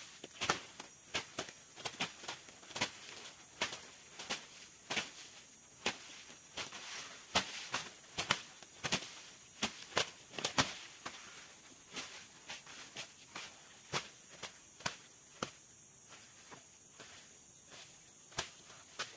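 A leafy branch swept in short, sharp strokes over a freshly sawn ulin (Borneo ironwood) beam to brush off sawdust. The strokes come irregularly, about two a second at first and sparser in the last few seconds, over a steady high-pitched insect hiss.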